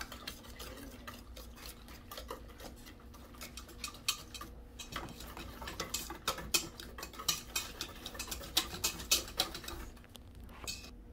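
Wire whisk clinking and scraping against a stainless steel bowl as instant pudding mix is whisked into milk. The clicks come quickly and unevenly and grow louder about halfway through.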